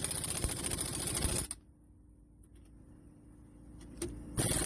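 Impact wrench hammering lug nuts tight on a wheel and wheel spacer: a fast rattling burst that stops about a second and a half in, and another burst starting near the end.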